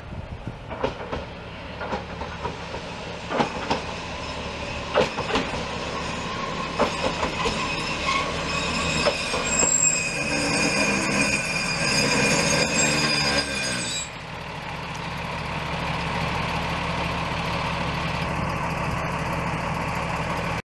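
Single-car Akechi Railway diesel railcar pulling into the station. Its wheels click over the rail joints, then its brakes squeal in steady high tones as it slows. About fourteen seconds in the squeal cuts off as it stops, leaving the diesel engine idling.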